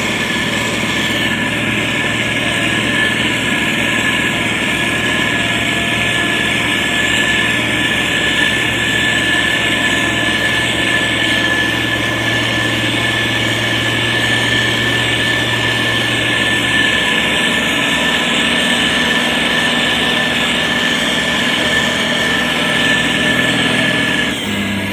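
SANY STG190C-8S motor grader's diesel engine running steadily, with a steady high whine over the engine note. The deepest part of the hum drops away about two-thirds of the way through.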